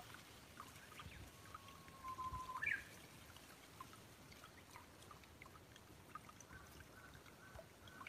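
Faint trickling water in a small garden pond. About two seconds in, a bird gives one held whistled note that ends in a short, higher note. Fainter repeated bird notes come near the end.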